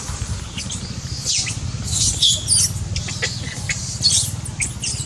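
Macaques squeaking and squealing: a run of short, high-pitched calls, several falling in pitch, over a steady low hum.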